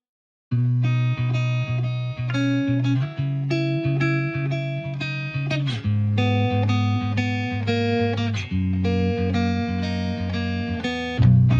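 Background music: plucked guitar with bass, steady rhythmic picking, after a brief silence at the start.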